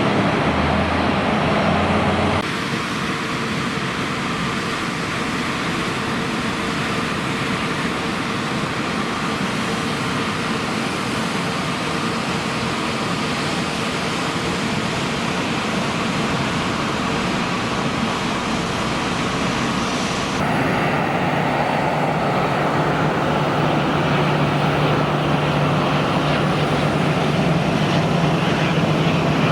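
Airliner engines running: a steady, dense engine noise that changes character abruptly twice, about two seconds in and again near two-thirds of the way through.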